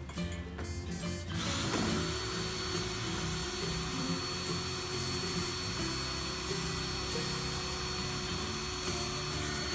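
Background music with a power tool running steadily under it from about a second and a half in.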